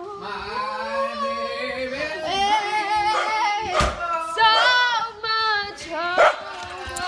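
Young girls singing loosely with held, sliding notes, and a couple of sharp knocks about four and six seconds in.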